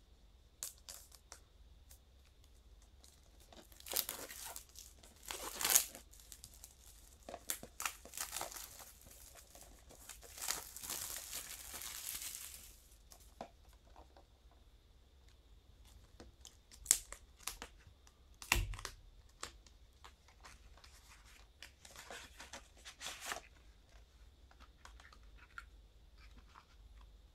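Plastic shrink-wrap being torn and crinkled off a Blu-ray SteelBook in bursts, the longest tear a couple of seconds long, then quieter handling of the cardboard slipcover and metal case with a few clicks and one dull thump.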